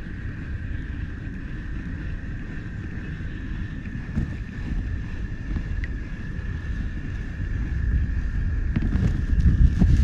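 Wind buffeting the microphone, a low rumble that grows stronger toward the end, over a faint steady high whine.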